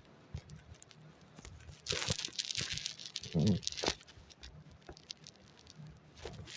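Faint handling noise: scattered clicks and rustling, with a denser rustle about two seconds in and a brief low hum-like vocal sound in the middle.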